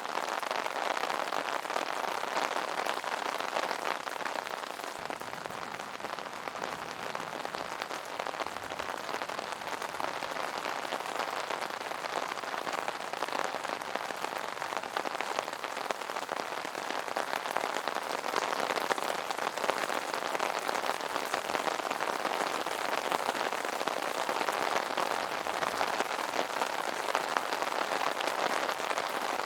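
Steady rain falling on an umbrella: a dense, even hiss of drops with many small separate ticks.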